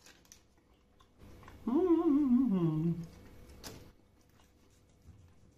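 A man humming one long, wavering "mmm" of approval while tasting a piece of meat, sliding down in pitch. A few light clicks of knife and fork come before and after it.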